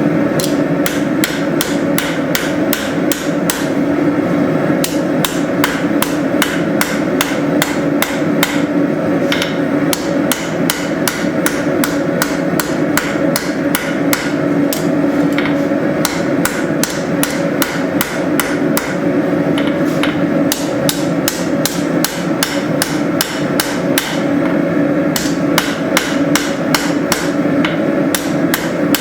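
Forging hammer blows on hot steel at the anvil, about three strikes a second in a steady, unbroken rhythm, over a continuous low hum.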